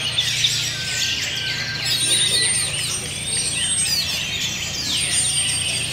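Several caged orange-headed thrushes (anis merah) singing at once in competition: a dense, overlapping run of chirps and whistled phrases. A long, thin, high held note comes about two seconds in and again near the end.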